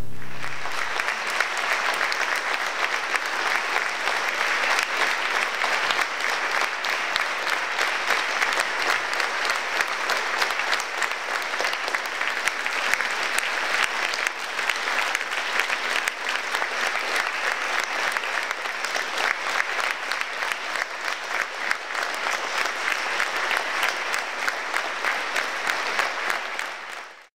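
Theatre audience applauding: a dense, steady clapping of many hands that cuts off suddenly near the end.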